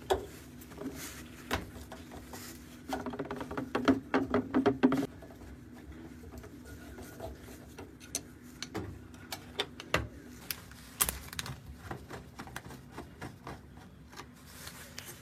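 Screws being taken out of a washing machine's rear cover, with scattered clicks and knocks of the screwdriver and the panel, and a louder buzzing stretch about three seconds in.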